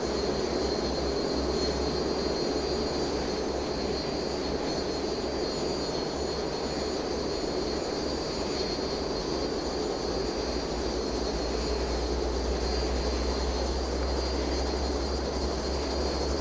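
Helicopter engine and rotor noise heard from inside the cabin in flight: a steady, unchanging rush with a thin high whine above it.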